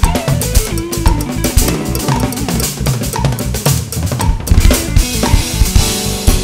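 Gretsch Catalina Maple drum kit played in a busy fusion groove with nylon-tip sticks: rapid snare, tom and bass-drum strokes, with cymbals washing over the second half.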